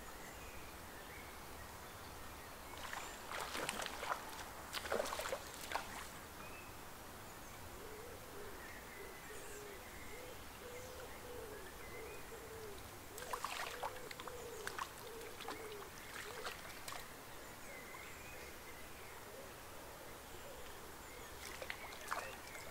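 Several short bursts of sharp clicks and splashes from wading and line handling in shallow river water. Through the middle, a low bird call hoots over and over for several seconds, over a faint steady hiss.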